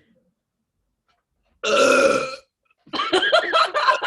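A woman burping loud and voiced: a short burp about a second and a half in, then, after a brief pause, a longer, rougher one.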